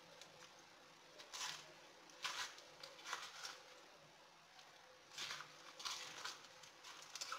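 Spoon scraping out the inner leaves and hairy choke of a globe artichoke: short, faint scraping and rustling strokes, about one a second.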